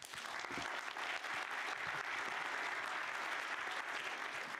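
Audience applauding: dense, steady clapping that breaks out all at once.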